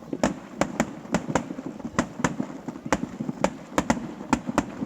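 Fireworks going off: a rapid string of sharp bangs and cracks, several a second, over a steady rumble of further bursts.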